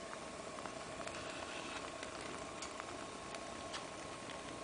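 Shiitake mushrooms grilling gills-up on a wire rack, a faint steady sizzle with scattered small pops and clicks, over a faint steady hum.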